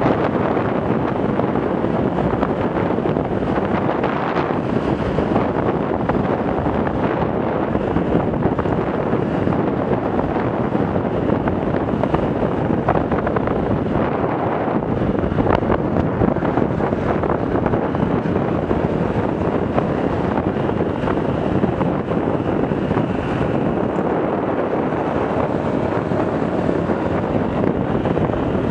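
Steady wind rush buffeting the microphone of a motorcycle riding along a road at speed, with the Yamaha YBR 125's single-cylinder four-stroke engine running underneath it.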